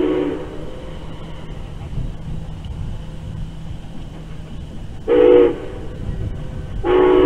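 Steam whistle of Nickel Plate Road 765, a 2-8-4 Berkshire locomotive, blowing a chord of several tones. A long blast ends just after the start, a short blast comes about five seconds in, and another long blast begins near the end. This is the long-long-short-long signal for a grade crossing.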